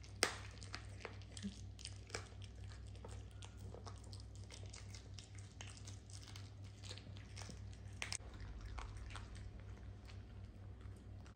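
Miniature dachshund chewing and crunching its food, a run of small irregular crunches and clicks, over a steady low hum.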